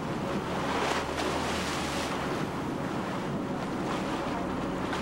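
Open-sea water churning and slapping around a boat's stern, with wind buffeting the microphone and a steady low hum of the boat's engine underneath; a slight swell in the water noise about a second in.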